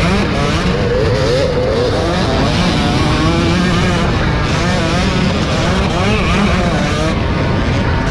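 Several race-car engines running hard together, their pitch rising and falling continuously as the cars accelerate and back off.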